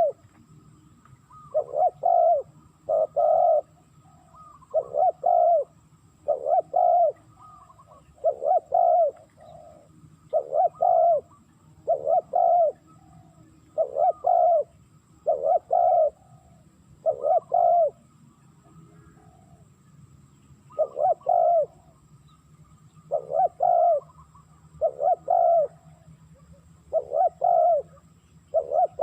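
Spotted dove cooing: the same short double-note coo phrase is repeated about every two seconds, with a brief break about two-thirds of the way through.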